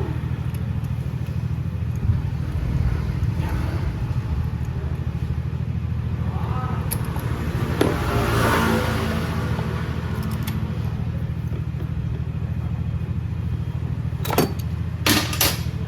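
SYM Mii 110 scooter's small single-cylinder four-stroke engine idling steadily, with a few sharp clicks near the end.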